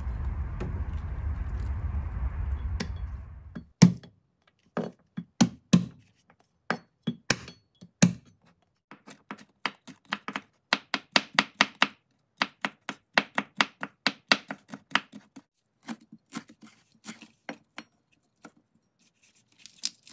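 Water running while mushrooms are rinsed in a metal strainer; then, about four seconds in, a cleaver chopping garlic on a wooden cutting board in quick runs of strikes broken by short pauses.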